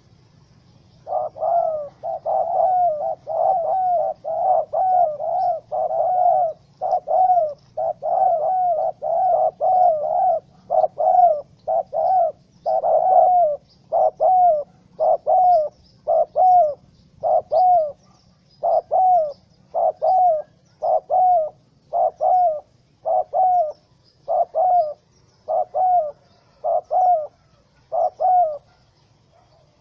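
Spotted dove calling, a long run of short cooing notes, close together at first and then spaced about one a second, stopping shortly before the end.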